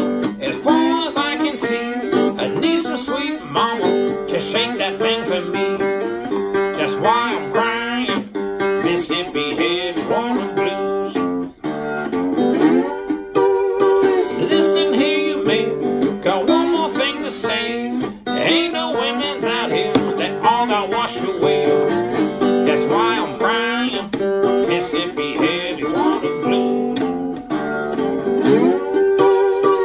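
Acoustic blues guitar played with a slide: sliding melody notes glide up and down over a steady, repeating pattern on the low strings.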